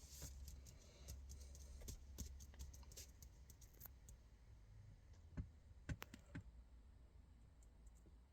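Faint, scattered light clicks and taps over near silence, with a few sharper clicks between about five and a half and six and a half seconds in.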